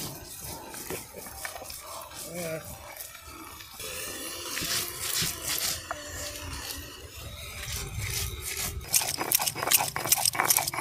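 Faint background voices, then a fast, steady run of short sharp taps or strokes begins about nine seconds in and keeps going.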